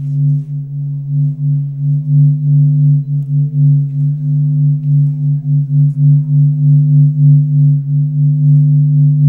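Low droning music: a steady deep hum with fainter higher tones over it, pulsing about two or three times a second.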